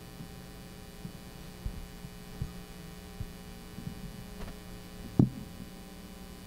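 Steady mains hum with several low thuds from a microphone being handled on its stand; the loudest thud comes about five seconds in.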